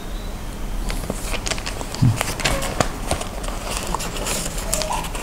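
Paper envelope being torn and opened by hand: a run of crinkling, rustling and tearing clicks, with one dull thump about two seconds in.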